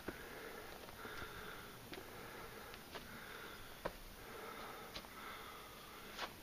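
A person's heavy breathing close to the microphone, about one breath a second, with sharp footfalls on rock every second or so.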